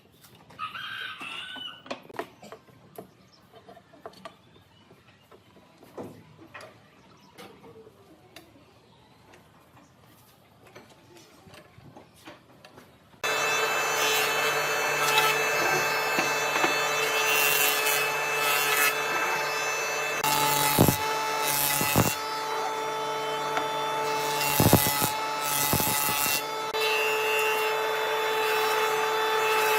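Scattered light taps and clicks of wood being handled. Then, about 13 s in, a power tool starts suddenly and runs steadily on wood, with a steady whine and a few brief louder surges.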